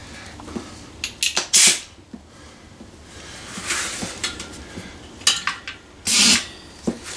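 Metal tyre-changing tools clinking and clattering as they are handled, with two short hissing bursts about a second and a half in and near the end.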